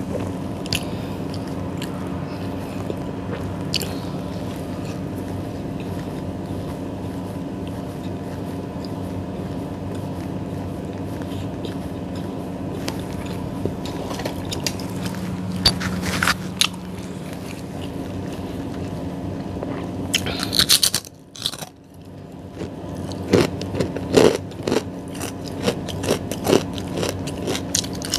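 Close-miked eating of soft bread rolls: chewing with wet mouth clicks and bites, over a steady droning hum. About two-thirds of the way through there is a short crackly burst and the hum drops out briefly, and after that the bites and mouth clicks come thick and fast.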